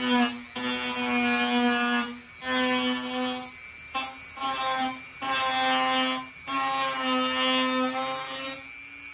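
Dremel rotary tool grinding a crack in a thermoformed plastic kayak hull out into a V-notch, its motor whining at a steady high pitch. The whine comes in spells of a second or two, dipping briefly about five times as the bit is eased off and pressed back in.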